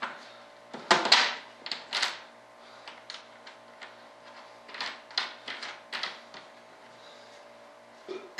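Sharp, irregular clicks and light knocks from hands working the bolts and hardware along the flange of a fiberglass wing mold, the loudest about a second in, over a steady faint hum.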